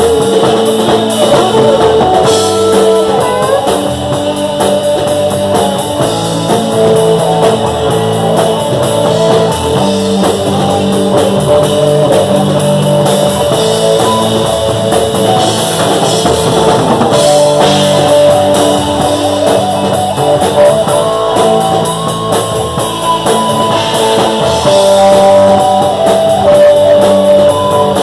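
Live band playing rock music on amplified electric guitars, with drums keeping a steady beat.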